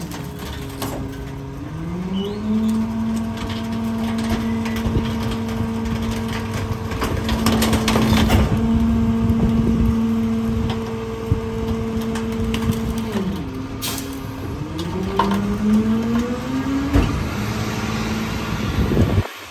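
Garbage truck engine revving up and holding high while the hydraulic packer runs, with cracking and crunching of debris being compacted. The revs drop back twice, near the middle and near the end, as the cycle stages change.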